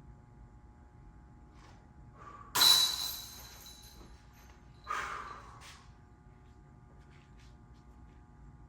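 Two disc golf putts hitting a basket's metal chains: a loud metallic clash with ringing that fades over about a second, then a softer one about two seconds later. A low steady hum runs underneath.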